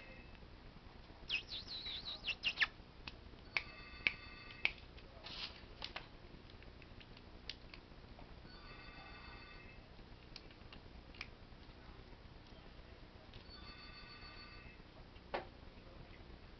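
A short pattern of electronic beeping tones repeats about every five seconds, four times in all. About a second in comes a brief run of crinkling and crackling, which fits the kitten pawing a plastic wrapper, followed by a few scattered clicks.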